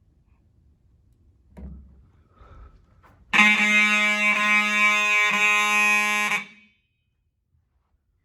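Vintage FCI fire alarm horn sounding a harsh, buzzy tone for about three seconds. It drops out for an instant twice and then cuts off suddenly. A faint knock comes a couple of seconds before it.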